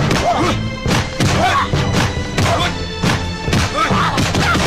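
Martial-arts film fight soundtrack: music playing under a series of sharp punch-and-kick hit sound effects.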